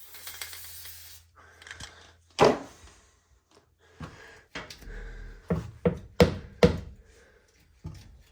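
An aerosol lubricant spray can hisses briefly, then come a series of sharp knocks and clunks, one loud one and later a quick run of four.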